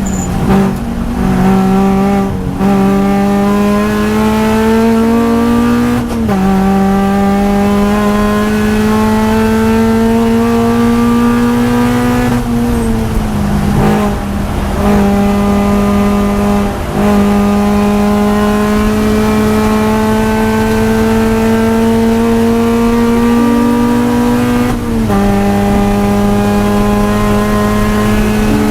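2013 Subaru BRZ's 2.0-litre flat-four engine pulling hard on track, its note climbing steadily for several seconds at a time and dropping sharply at each gear change or lift. There are about five such drops, with the longest climb near the end.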